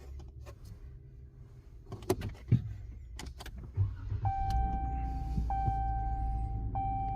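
A pickup truck cab with the ignition on: a few clicks, then from about four seconds in a steady electronic warning tone that breaks off briefly twice, over a low hum.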